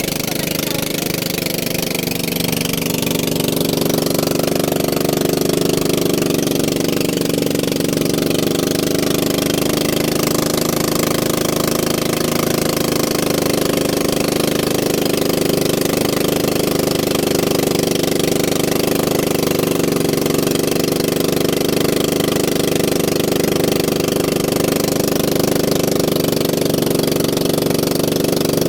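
Small boat engine running steadily at a constant speed, with an even, unchanging drone.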